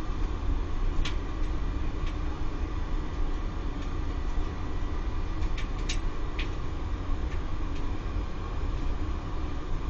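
Steady low hum of a Laddomat wood-boiler charging unit with its circulation pump running, with a faint steady whine and a handful of irregular light ticks.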